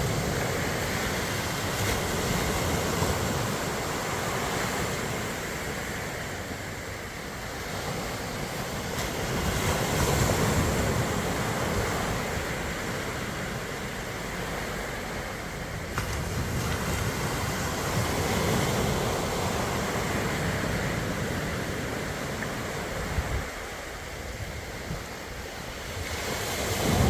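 Sea waves rolling in and breaking on a beach, a continuous surf wash that swells and eases every several seconds.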